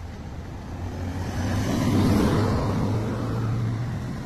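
A motor vehicle passing by on the road, its engine and tyre noise swelling to loudest about two seconds in and then fading away.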